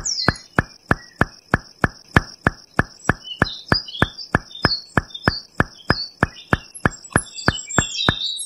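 Nature ambience of a steady high insect trill with scattered bird-like chirps, over a very regular clicking of about three clicks a second.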